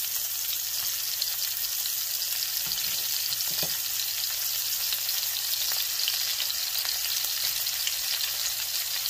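Flour-dredged cube steaks frying in shallow hot vegetable oil in a cast iron pan: a steady, crackling sizzle as the meat browns.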